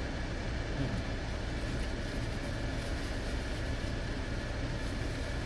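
Steady low hum of an idling car, heard from inside the cabin.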